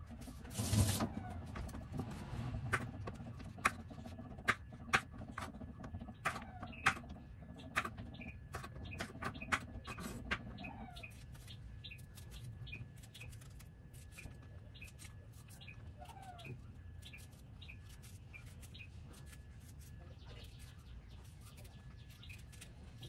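Kitchen knife cutting okra on a wooden chopping board: sharp knocks of the blade on the board, frequent for the first ten seconds or so, then only now and then. Birds chirp faintly in the background.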